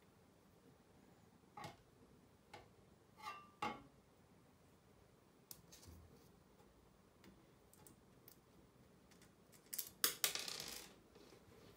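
Small metal clicks and light rattles as the aluminium parts of a model airplane weather vane, a tail strut, tailwheel and small screws and nuts, are handled and fitted together by hand. There are a few separate clicks in the first four seconds, then a louder cluster of clicking and rattling about ten seconds in.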